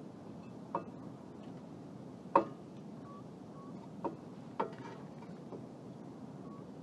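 A few separate sharp metal clicks and clinks, the loudest about two and a half seconds in, from a C-clamp being set on a brake caliper and turned to push the piston back.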